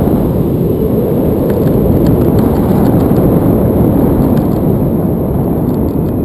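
Wind buffeting the microphone of a selfie-stick action camera during a tandem paraglider flight: a loud, steady, deep rush of air.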